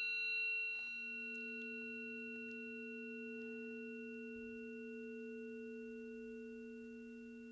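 Planetary tuning forks ringing with two steady pure tones, a low one and one about an octave above, plus faint higher overtones, slowly fading; the lower tone swells a little about a second in.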